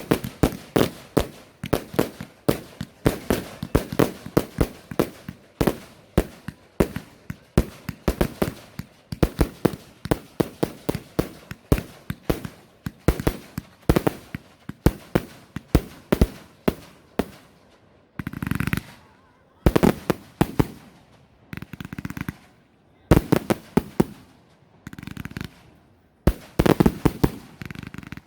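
Fireworks going off: a fast run of sharp cracks and bangs, several a second. From about two-thirds of the way in, this gives way to separate hissing, crackling bursts with short pauses between them.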